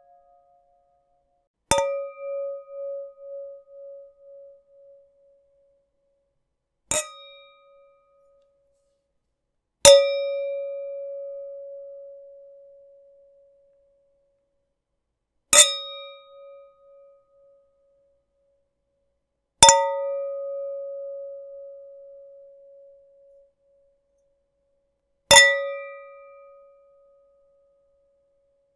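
A glass struck six times, several seconds apart; each clink rings on in one clear tone with fainter higher overtones, fading over one to four seconds, some with a wavering pulse as it dies away.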